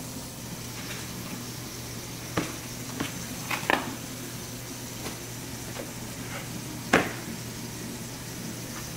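Hands handling a raw whole chicken on a foam meat tray, with plastic wrapping rustling: a few short soft rustles and taps, the sharpest about seven seconds in, over a steady background hum.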